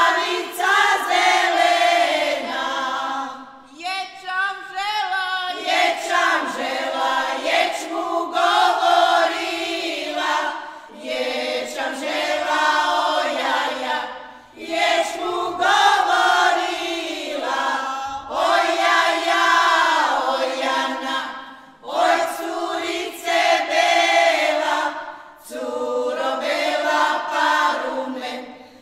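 Women's folk choir singing a traditional Turopolje song a cappella, in long held phrases with short breaks between them.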